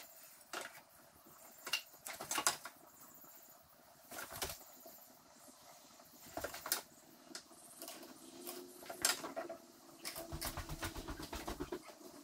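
Thin wooden trim boards being handled and fitted against a cabinet: scattered light clicks and knocks of wood on wood. About ten seconds in a low steady hum with rapid even pulsing starts up.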